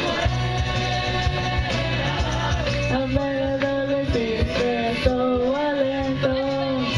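A child sings a rock and roll tune into a microphone over backing music. Sung notes are held and steady through the second half.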